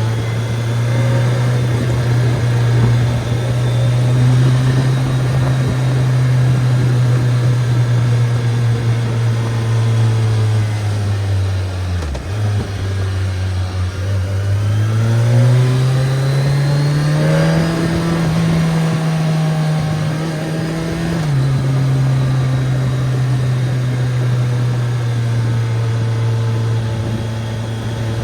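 BMW K1300S motorcycle's inline-four engine running on the road: steady engine note that dips briefly, then the revs climb for a few seconds, hold, and drop suddenly back to the cruising note.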